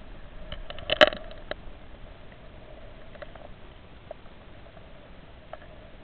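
Clicks and ticks picked up underwater by a camera in a waterproof housing: a quick cluster of sharp clicks about a second in, the loudest sound here, then a few scattered faint ticks over a faint steady hum.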